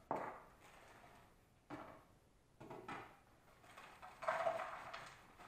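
Plastic bag of frozen broccoli crinkling as it is cut open and handled: a few short rustles and knocks, the loudest near the end.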